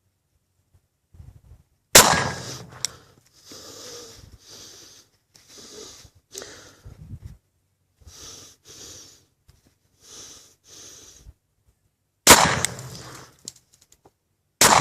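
Three pistol shots from a Kahr CM40 .40 S&W firing SinterFire frangible rounds, each a sharp crack with a trailing echo. The first comes about two seconds in, and two more come near the end. Between the first two shots there is a run of short puffs of breath close to the phone's microphone.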